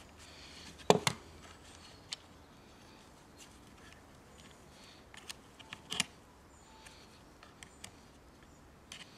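Scattered small clicks and knocks of plastic and metal parts being handled as the choke rod is worked loose from a Stihl chainsaw's carburettor, the sharpest click about a second in.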